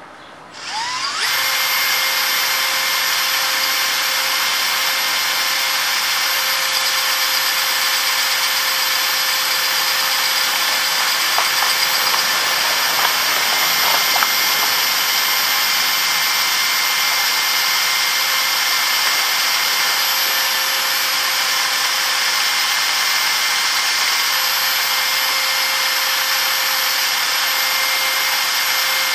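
A cordless drill starts about a second in, its whine rising as it spins up, then runs steadily with an abrasive disc in the chuck. A metal clutch part of a Yamaha Axis 90 is held against the spinning disc, adding a grinding hiss that gets louder for a stretch about halfway through.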